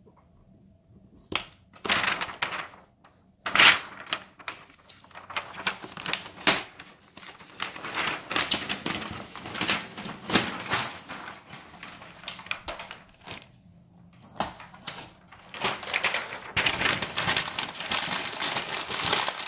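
Plastic wrap and tape on a new monitor crinkling and crackling in irregular bursts as they are peeled and handled, with a few sharp snaps and two brief pauses.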